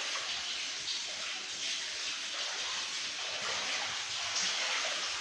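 Steady rush of water in a school room flooded by heavy rain, with no separate drops or splashes standing out.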